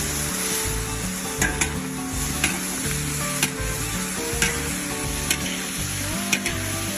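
Food frying in hot oil in a pan, a steady sizzle, with sharp clicks about once a second. Quiet background music with low held notes underneath.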